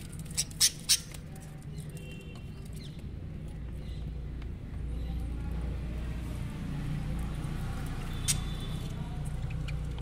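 Caged budgerigars giving a few short squawks and chirps over a steady low hum. There are three sharp clicks within the first second and another one late on.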